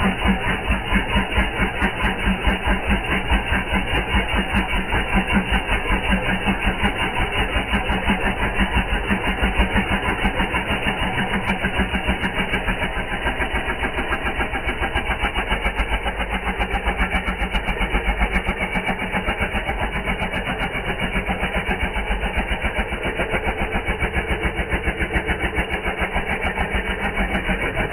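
Small electric piston air compressor of a cordless portable tyre inflator running steadily, with a rapid, even mechanical pulsing.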